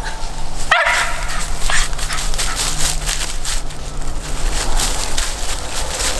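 A mountain feist dog gives one short bark about a second in, then dry fallen leaves crunch and rustle as it and the person filming walk through the leaf litter.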